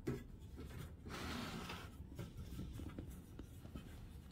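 Faint rubbing and light scraping noise, with a soft click at the start and a longer rustle about a second in.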